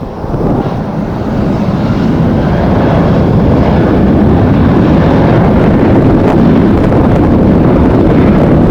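Loud low rumble of a jet airliner's engines mixed with strong wind buffeting the microphone, swelling over the first two seconds or so and then holding steady.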